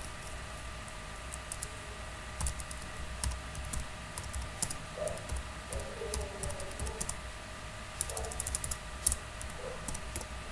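Typing on a computer keyboard: irregular, unhurried keystrokes with a quick flurry of clicks about eight seconds in.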